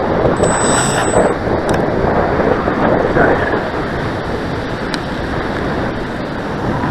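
Strong gusty wind buffeting the microphone, a steady rushing noise, with surf from the beach underneath.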